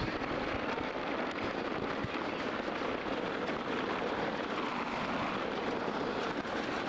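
Steady hiss of a heavy thunderstorm downpour driven by gusty wind, holding at an even level throughout.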